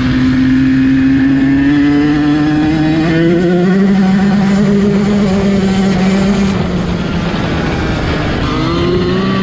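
Yamaha YZ125's 125cc two-stroke single-cylinder engine running under way on a dirt bike ride, its pitch climbing steadily for the first few seconds, dipping as the throttle eases off about eight seconds in, then rising again near the end.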